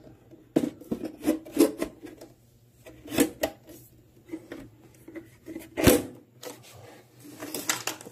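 Irregular knocks, taps and scrapes of a mixing console being pushed and settled into a wooden case, coming in clusters, with the loudest knock just before six seconds in.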